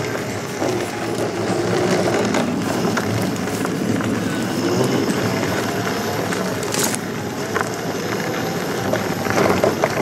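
Electric unicycles rolling along a dirt trail: a steady rush of tyre and trail noise with a faint motor whine that drifts up and down. There are a few sharp clicks, one about seven seconds in and several near the end.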